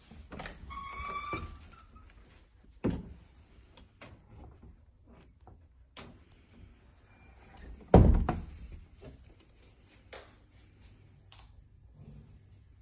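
Interior cupboard door being opened and shut: a short squeak as it opens, a thud about three seconds in, and a louder thud about eight seconds in as it closes.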